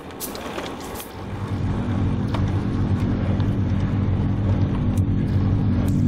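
A steady, low engine-like hum that sets in about a second in and grows louder, over the rush of wind and road noise of a road bike.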